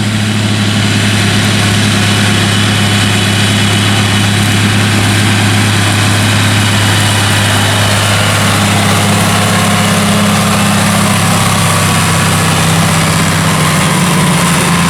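Heavy engines of farm machinery running steadily at a loud, even level, with a low hum throughout. A second engine note changes pitch about nine seconds in.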